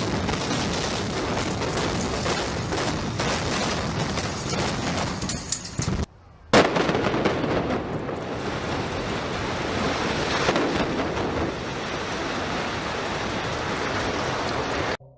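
Two clips of a World Trade Center tower collapsing: a continuous, dense rumbling roar with crackle from the falling structure and debris. It cuts out briefly about six seconds in, then a second collapse starts with a sharp bang and rumbles on.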